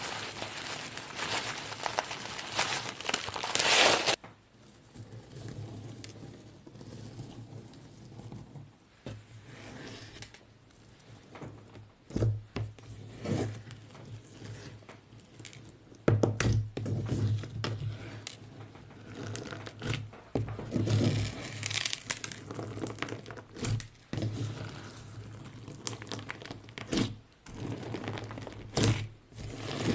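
Slime being squeezed and pressed by hand, making crinkly, crackling squishes: a dense stretch for the first four seconds, then quieter pokes and presses with soft thuds.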